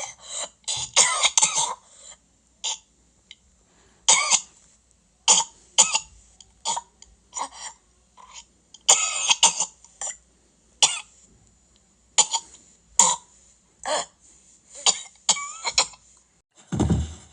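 A person coughing over and over in short, harsh fits, some single and some in quick clusters, with a longer, heavier burst right at the end.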